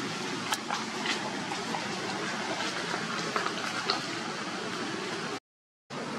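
Steady outdoor background hiss with a few faint scattered clicks, cutting out completely for about half a second near the end.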